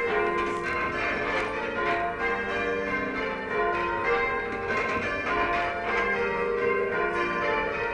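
Church tower bells of a 14 cwt ring being rung in changes: one bell after another struck in a steady, continuous round, each note ringing on into the next.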